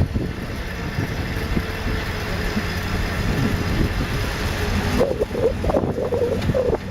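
Wind buffeting the microphone while riding a bicycle, a steady low rumble. A wavering tone comes in for the last couple of seconds.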